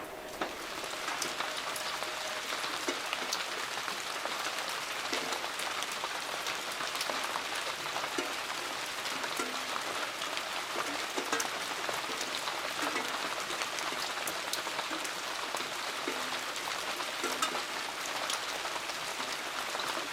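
Steady rain falling, with many individual drops tapping sharply through an even hiss.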